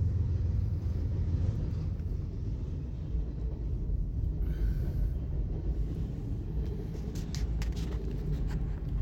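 Double-stack container train passing close by: a steady low rumble of steel wheels on the rails, with a few sharp clicks near the end.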